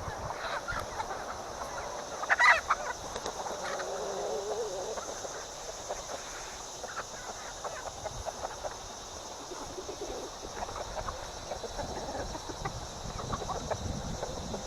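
A flock of chickens clucking, with one loud squawk about two and a half seconds in. Wind rumbles on the microphone.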